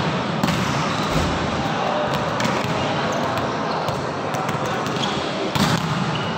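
Volleyballs being spiked and slapping off the court floor during a spiking warm-up in a large sports hall: repeated short sharp hits, with players' voices underneath.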